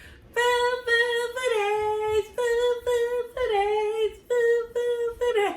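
A woman's voice singing or humming a short unaccompanied tune in about eight short held notes, some sliding down slightly at the end.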